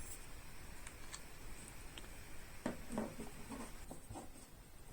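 Phillips screwdriver working the screws on a router's metal back cover: faint scratchy scraping and small ticks, with a cluster of louder little knocks and scrapes about three seconds in.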